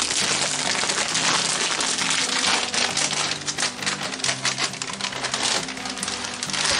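Plastic bag of dried steam-fried noodles crinkling and rustling as it is handled and opened, with a steady run of crackly clicks.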